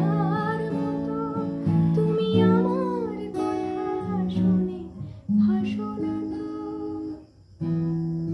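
A woman singing a Bengali song over strummed acoustic guitar chords. Her voice stops after about three seconds and the guitar carries on alone, breaking off briefly near the end before the strumming starts again.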